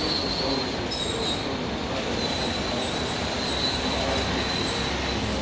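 G-scale model trains running on the layout's track: a steady rolling rumble with a thin, steady high whine over it.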